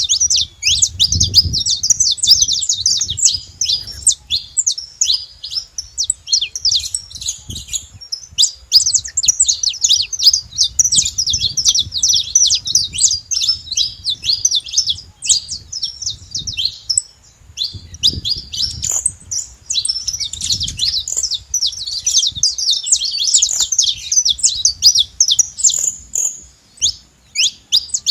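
Saffron finch singing: long, fast runs of high chirping notes with brief pauses between phrases.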